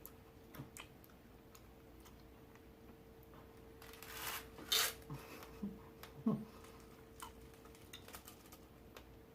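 Quiet sounds of people chewing sour chewy candy (SweeTarts Mini Chews): scattered small clicks and mouth noises, with a short rustle about four seconds in, over a faint steady hum.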